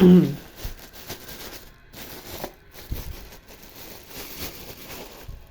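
A short vocal sound at the very start, then faint crinkling and rustling of a plastic bag with a few light clicks and knocks as a bag of rice is handled to refill an empty rice container.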